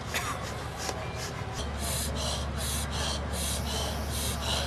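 Forceful rapid rhythmic breathing, about three sharp breaths a second, starting about one and a half seconds in, over a steady low hum.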